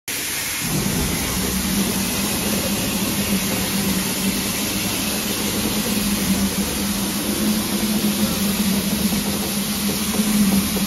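SNCF 141 R steam locomotive and its tender easing slowly back along the platform, propelling its train. A steady hiss of escaping steam sits over a low, even hum.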